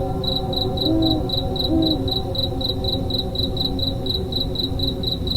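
A cricket chirping in an even, rapid rhythm, about four chirps a second, over a low steady rumble and a few sustained low tones.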